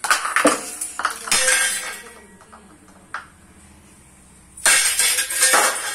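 Metal clinks and clatter of a stainless steel plate, a bowl and a metal rod being knocked together in a small child's play: a run of four knocks in the first second and a half, then a single tap about three seconds in. Near the end, jingling music comes in.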